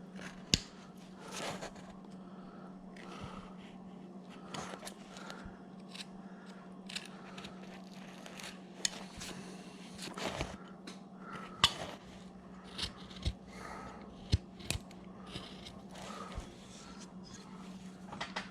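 Hand-carving wood with a blade: short, irregular paring cuts and scrapes, with sharp clicks now and then, shaving off gouge marks. A steady low hum runs underneath.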